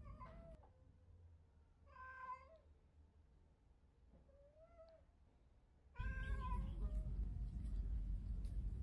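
Domestic cat meowing: four short meows, about two seconds apart. About six seconds in, a steady low rumble comes in suddenly and runs under the last meow.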